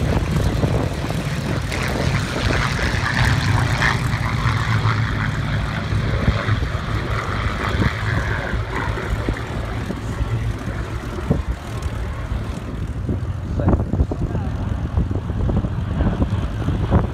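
Piston-engined propeller warbirds flying past in formation: a steady engine drone, strongest in the first half and easing off later as they move away.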